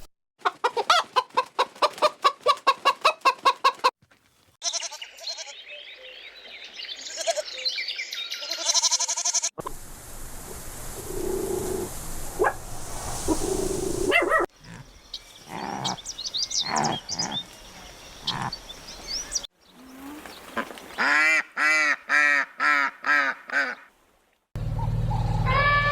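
A run of short recordings of different animals and birds calling, one after another, with abrupt cuts between them. They include a rapid series of about a dozen calls near the start, bird chirping in the middle, and a series of about seven loud repeated calls near the end.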